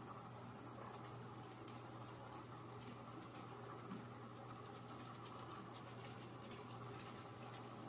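Faint, quiet room sound: a steady low hum under scattered light ticks and scratches, thickest in the first half.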